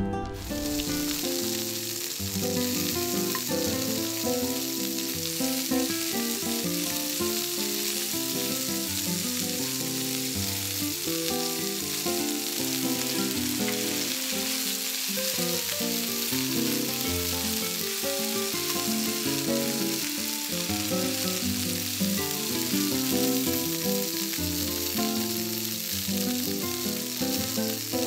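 Meat and vegetables sizzling in a cast-iron skillet over a small wood-burning stove: a steady frying hiss under background music with changing notes.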